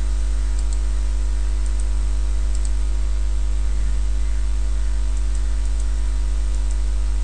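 Steady electrical hum with a stack of overtones and a hiss of recording noise, with a few faint mouse clicks.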